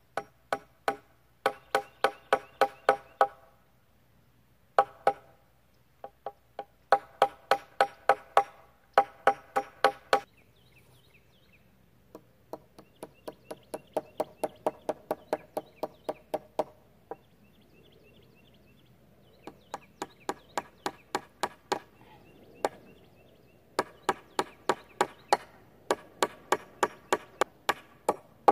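A hammer driving nails into wood: quick runs of sharp, ringing blows, about five a second, each run lasting a few seconds with short pauses between.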